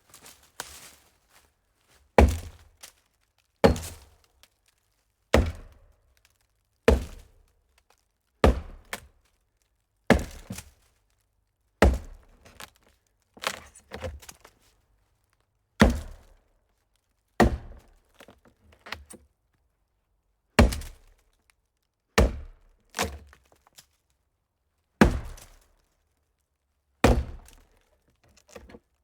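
A hollow tree trunk being chopped: heavy wooden thunks, each with a short hollow decay, landing at a steady pace of about one blow every one and a half to two seconds. Some blows are followed by a lighter knock.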